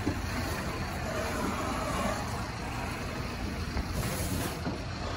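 Steady low rumble of parking-lot traffic noise.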